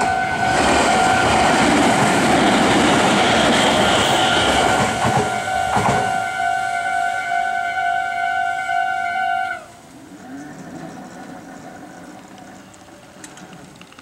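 Meitetsu 3500 series electric train running through a level crossing, its wheels clattering over the rails for about five seconds, under the steady ringing of the crossing's electronic warning bell. The bell cuts off suddenly a little past two-thirds of the way through, leaving only faint sounds.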